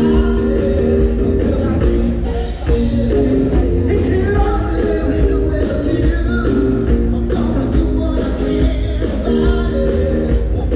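Live band music with a steady drum beat, held chords and heavy bass, with singing voices.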